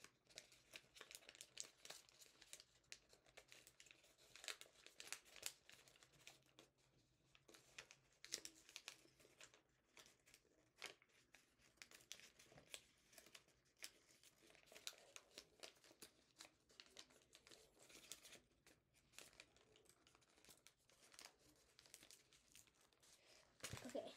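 Faint crinkling and rustling of origami paper handled, folded and flattened along its creases, in many small scattered crackles.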